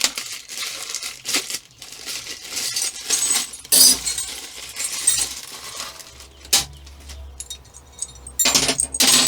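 Small bench grinder accessory parts clinking and knocking as they are handled and unpacked, in irregular strokes, loudest about four seconds in and near the end.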